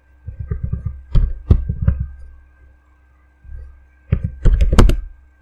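Computer mouse and keyboard clicks: several sharp single clicks, then a quick run of key taps about four and a half seconds in. Under them runs a faint steady electrical hum.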